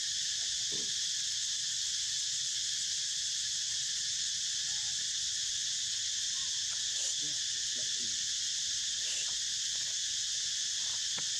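Steady, high-pitched insect chorus, with a few faint short sounds underneath.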